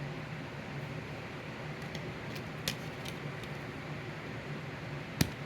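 Steady low hum in the room, with a couple of faint clicks in the middle and one sharp click near the end, from handling the plastic CD case.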